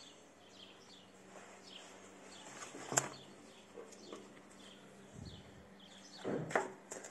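Small birds chirping on and off in the background while a padded knee guard and its paper leaflet are handled, with a sharp click about three seconds in and a louder rustle near the end.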